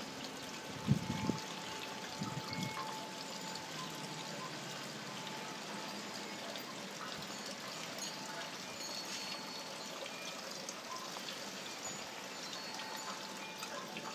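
Water trickling steadily from a stone garden wall fountain, with a faint ringing tone from a hanging brass bell now and then. A brief low rumble about a second in and a smaller one near two and a half seconds.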